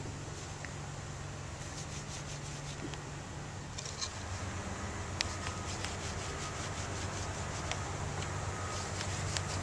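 A hand rubbing and massaging a terrier's back, a soft rubbing against fur, over a steady low rumble like an engine running. Faint short beeps come in a few times in the second half.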